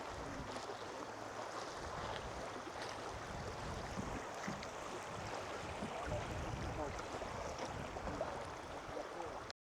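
Steady outdoor ambience of wind on the microphone and lapping lake water, with a few faint ticks, cutting off suddenly near the end.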